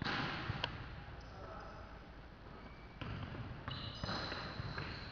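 A basketball being bounced during play on a court, with two sharp knocks right at the start and just over half a second later, over the general noise of players moving.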